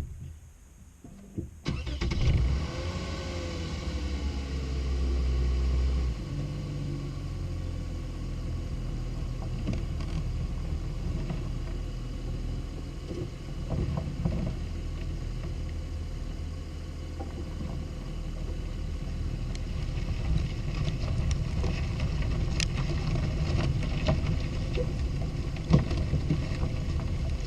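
Lexus IS250's 2.5-litre V6 cranking and starting about two seconds in, settling from a higher, heavier run into a steady idle about six seconds in. Scattered sharp clicks and knocks come over the running engine later on.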